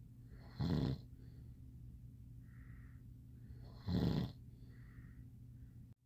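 A man snoring in bed: two loud snores about three seconds apart, with softer breathing between, over a steady low hum.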